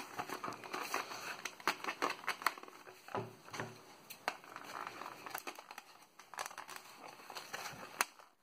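Plastic blister packaging on a card backing crinkling and rustling as it is handled, with scattered small clicks; near the end scissors snip sharply into the card.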